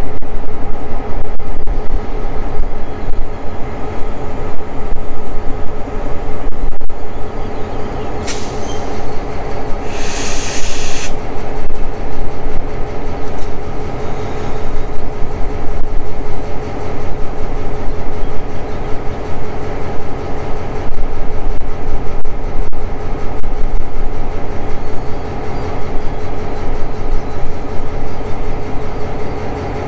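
Diesel-electric freight locomotive engine idling with a steady, even note. About eight seconds in comes a brief high hiss, and a second or so later a hiss of about one second.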